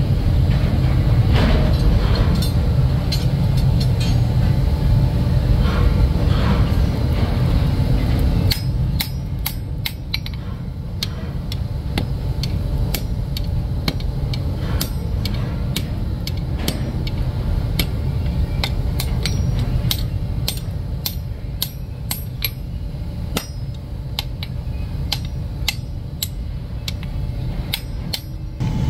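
Hand hammers striking red-hot iron on a block anvil while forging blacksmith tongs. From about eight seconds in there is a fast, uneven run of sharp metallic blows from smith and striker, each with a short ring. A steady low rumble runs underneath.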